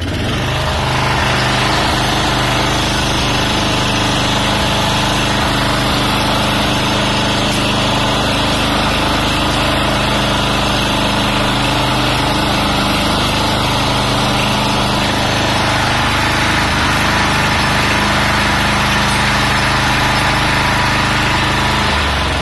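Small ride-on lawnmower's engine running steadily as the mower drives across the lawn towing a homemade spiked aerator roller.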